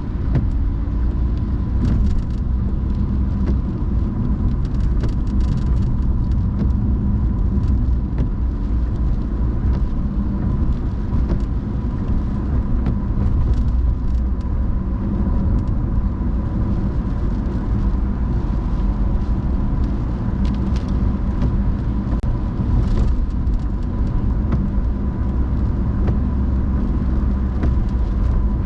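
A car driving along: a steady low rumble of road and engine noise, with a thin steady whine and faint scattered ticks above it.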